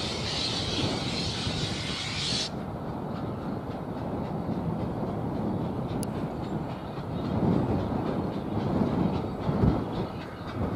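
Narrow-gauge steam locomotive approaching with a train. A steady high hiss of steam cuts off suddenly after about two and a half seconds, and the working exhaust beats and running rumble grow louder towards the end.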